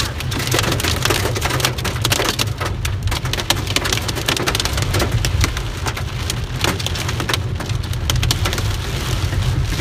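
Heavy hail pelting a car's roof and windshield, heard from inside the cabin: a dense, irregular rattle of sharp impacts over the low steady rumble of the car driving.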